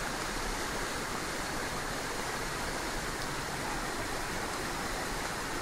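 Muddy floodwater rushing steadily down a rain-swollen ravine channel, a flash flood after heavy rain.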